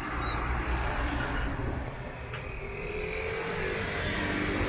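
Steady low rumble of motor vehicle engine noise, with a faint steady hum joining in about halfway through.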